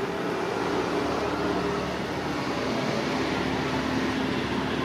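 EMD WDG 4D and WDG 4 diesel-electric freight locomotives working in multiple, their two-stroke engines giving a steady drone as they approach with a loaded freight train.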